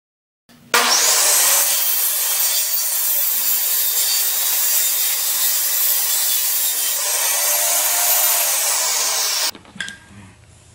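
Power saw cutting through pine 2x4 stock: a steady, loud cutting noise lasting about nine seconds, starting and stopping abruptly.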